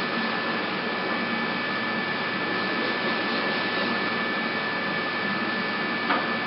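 Avia FNE 50 N CNC tool milling machine running: a steady mechanical noise with a thin, steady high whine over it.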